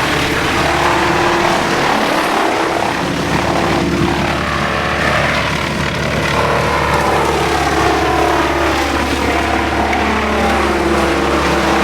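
Wood chipper running loud and steady, its engine pitch wavering as branches are fed in and chipped.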